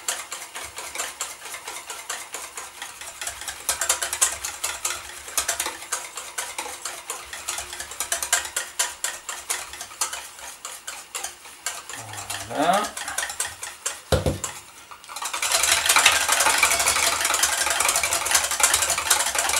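Wire whisk beating in a stainless steel bowl, a quick steady clatter of the wires against the metal as oil is drizzled in and the egg-and-mustard base emulsifies into a mayonnaise. About two-thirds through there is a single knock, and then the whisking grows louder.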